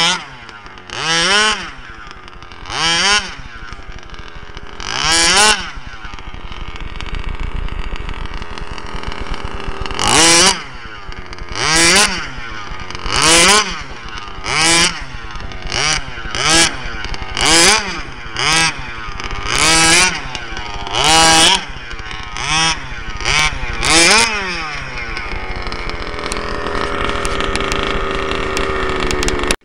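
FG 1/5-scale RC truck's 27cc two-stroke gas engine with a tuned pipe, its throttle blipped again and again: about sixteen short revs, each a quick rise in pitch, over a buzzing idle. There is a steadier stretch of lower running about a quarter of the way in.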